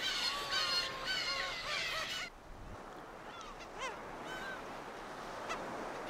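Birds at a nesting colony calling, many overlapping calls at once. About two seconds in the sound drops abruptly, leaving only a few scattered calls.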